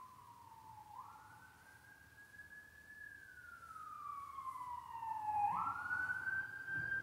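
A siren wailing: its pitch slides slowly down, then jumps quickly back up, twice over, growing louder toward the end.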